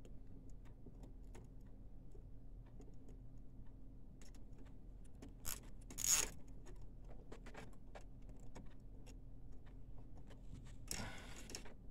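Faint scattered clicks and light rattles of plastic ink tubing and cable being handled against a printer's metal chassis, with a couple of louder scrapes about six seconds in.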